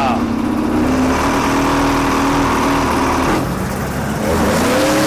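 Two-stroke engine running loudly and steadily, its pitch rising and falling near the end.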